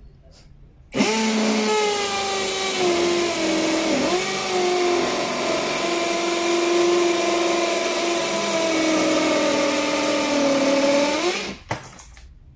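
SfunPro 16V cordless drill running for about ten seconds as its bit drills into a hollow brick, starting about a second in and stopping near the end. The motor's pitch sags gradually under the load, with a brief dip about four seconds in.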